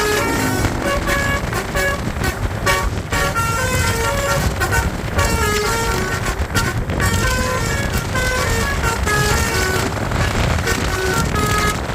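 Basuri 'telolet' musical horn on a bus playing a tune of short notes that step up and down in pitch, over a steady low rumble of engine and road noise.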